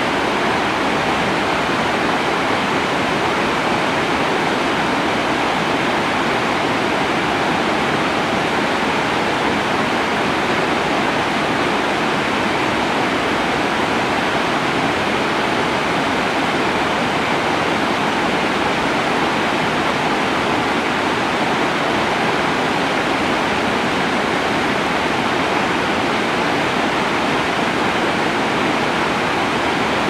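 Rocky mountain stream rushing over stones: a loud, steady rush of water.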